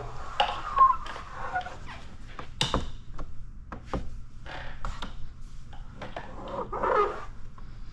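Squeegee rubbing and scraping over paint protection film, working the tack solution out to dry the film's edge, in short irregular strokes with scattered sharp clicks, the sharpest about three seconds in.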